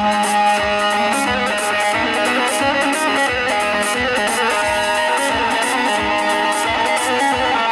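Instrumental music: an amplified plucked-string lead playing a busy melody over a steady beat.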